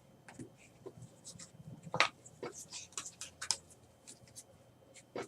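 Trading cards being handled: faint scattered rustles and light ticks of card stock and plastic sleeves, with one sharper click about two seconds in.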